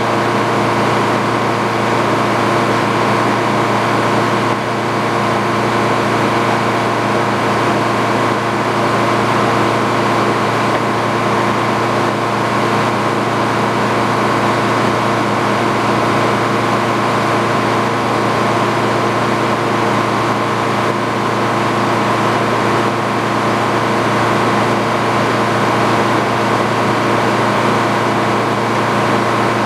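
Engine driving a Frick sawmill, running at a steady speed with no change in load.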